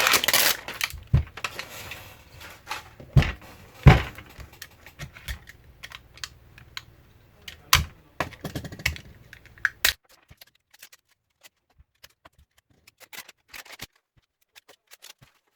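Sharp clicks and knocks of hands working on an opened scooter battery pack, with some rustling scraping in the first second. The loudest knocks come about 4 and 8 seconds in, and after about ten seconds only faint ticks remain.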